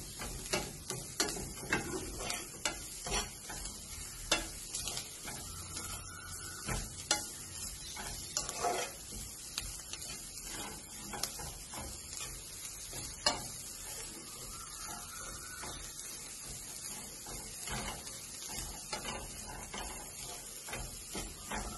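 A spatula stirring grated coconut, sugar and cardamom in hot ghee in a non-stick frying pan: irregular scraping and tapping against the pan over a steady frying sizzle, as the sugar is worked in. One sharper tap stands out about halfway through.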